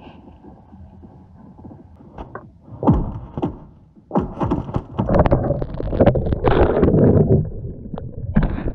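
Loud, irregular knocks and thumps with rumbling noise, starting about two seconds in and loudest in the second half, over faint background music at the start.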